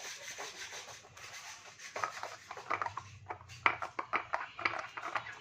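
Hand work on a scooter's CVT clutch parts: a steady rubbing and scraping, then from about two seconds in a run of short, sharp scrapes and clicks.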